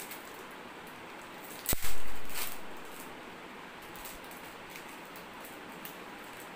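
Small paper packet being handled: a sharp knock about two seconds in, then a brief loud crinkling rustle that fades within a second, with faint handling ticks around it.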